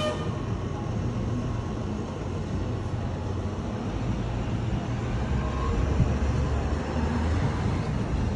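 City street traffic noise: a steady low rumble of passing vehicles. A brief high ring sounds right at the start.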